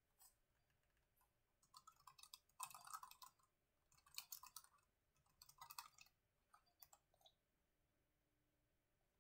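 Faint typing on a low-profile computer keyboard: five short bursts of key clicks with pauses of about half a second between them.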